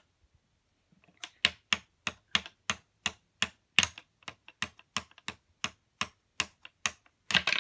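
Plastic toy hammer tapping on the plastic ice blocks of a Don't Drop Chase game, about three light taps a second. Near the end comes a louder clatter as blocks break loose and drop onto the table.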